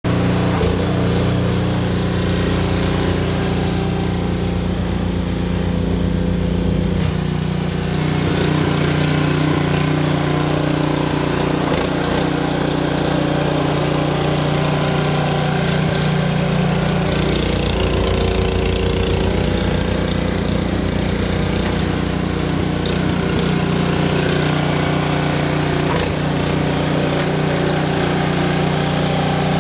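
Gasoline snowblower engine running steadily while clearing snow, its pitch shifting slightly a few times.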